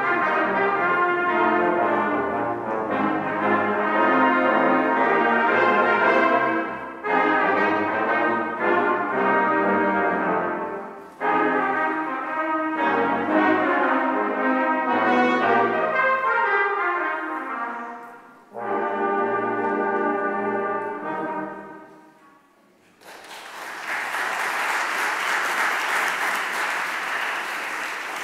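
Church brass choir of trumpets, trombones and low brass playing a piece in phrases with short breaks between them. Its last chord fades out about 22 seconds in, followed by about five seconds of steady noise.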